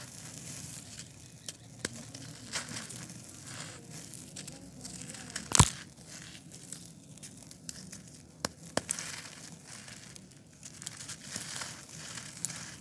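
Dry, gritty concrete discs crumbling and crunching in the hands, with loose grit and powder trickling through the fingers. Sharp crackles are scattered throughout, the loudest about halfway through and a pair of smaller ones a few seconds later.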